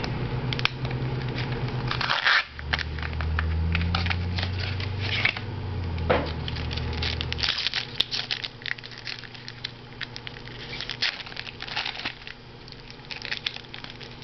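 Foil trading-card pack wrapper being torn open and crinkled by hand, a dense run of irregular crackles and crinkles. A low steady hum sits underneath for the first half.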